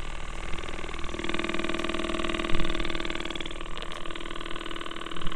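Lifepro Sonic percussion massage gun running against a forearm muscle: a steady motor hum with rapid pulsing from its striking head, getting louder and fuller about a second in.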